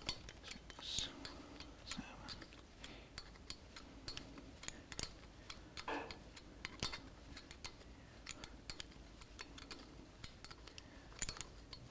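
Faint, irregular metal clicks of an open-end wrench being turned and reset, flat by flat, on an S&S adjustable pushrod of a Harley-Davidson Twin Cam, lengthening it 20 flats from zero lash.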